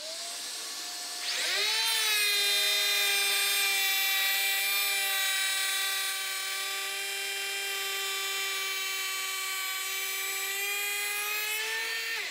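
Bosch GHO 12V-20 cordless brushless planer spinning up about a second in with a rising whine, then running steadily with a high-pitched whine as it planes a board at its maximum cutting depth; it stops at the very end.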